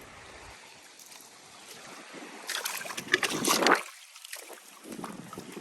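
Water splashing and sloshing, loudest for about a second around the middle, then dropping off suddenly.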